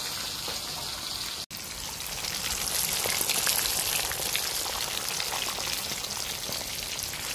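Whole tilapia frying in hot oil, a dense, steady sizzle full of small crackling pops. The sound drops out for an instant about a second and a half in, then comes back louder and closer.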